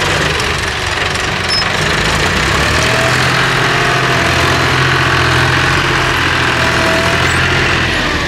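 John Deere combine harvester's diesel engine running steadily, a constant low drone that settles into a smoother, even hum about three seconds in.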